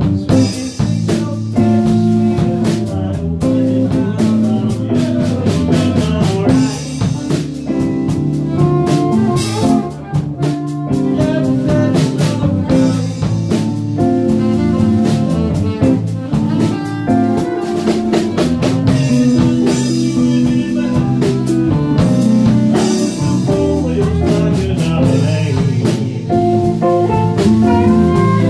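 Live band playing a blues number: guitar, drum kit and Fender bass.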